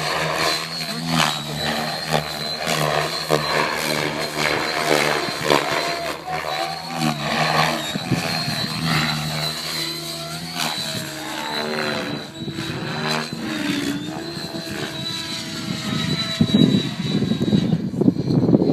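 Electric RC helicopter in flight: a high motor and gear whine over the beat of the rotor blades, its pitch shifting up and down in the middle as the helicopter manoeuvres. Near the end a louder rushing noise takes over.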